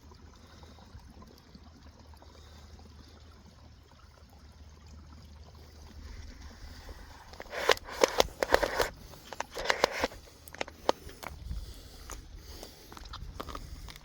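Faint steady running water for the first several seconds. Then, from about halfway, a series of crunching and scraping steps on ice and rock, loudest in two clusters.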